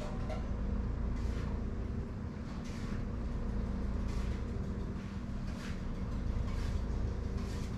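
Steady low mechanical hum and rumble, with a soft hiss that recurs about every second and a half.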